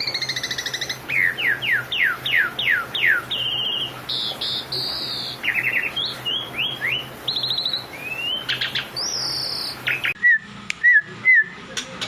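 Songbird singing a fast, varied song of downward-sweeping whistles and trills. About ten seconds in it gives way to a different bird making short, repeated chirps.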